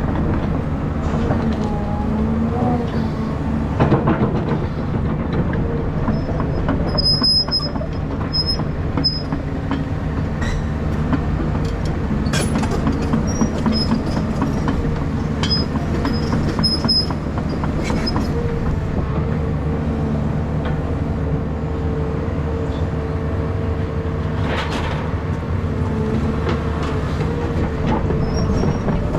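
Caterpillar 323 excavator's diesel engine running steadily under load while it works, with knocks and clatter of demolition debris and brief high squeals now and then.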